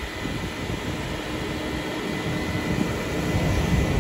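A steady mechanical hum with a faint high whine over an uneven low rumble.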